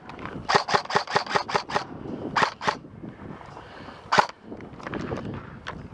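Airsoft guns firing: a quick string of about nine sharp shots in the first two seconds, then a couple of single shots, and one louder crack about four seconds in.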